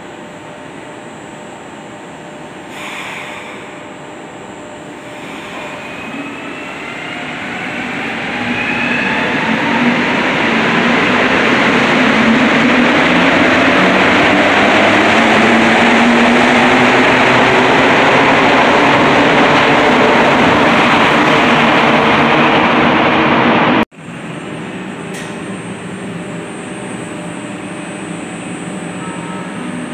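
Montreal Metro Azur rubber-tyred train pulling out: a rising whine from the electric traction motors starts a few seconds in and builds into a loud rush of running gear and air as the cars pass. It cuts off abruptly about 24 seconds in, followed by the quieter steady hum of a metro train standing at a platform.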